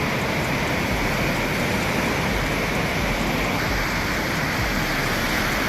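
Swollen river in flood, its water rushing past in a steady, dense noise.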